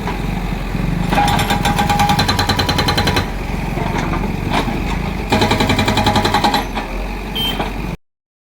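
JCB 3DX backhoe loader's diesel engine running, with two spells of fast, even rattling and a higher whine, about a second in and again halfway through; the sound cuts off abruptly near the end.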